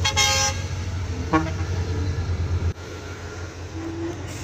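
Scania 113 truck's diesel engine running with a heavy low drone that drops away sharply about two and a half seconds in. A short horn toot sounds at the very start, with another brief tone about a second and a half in.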